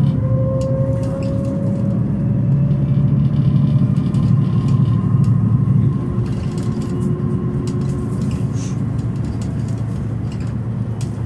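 A Setra S415 NF bus driving, its OM457 hLA horizontal inline-six turbo diesel and ZF Ecomat 6HP 592 automatic gearbox giving a steady drone with a faint whine that rises slowly in pitch over the first couple of seconds. The sound eases a little about six seconds in.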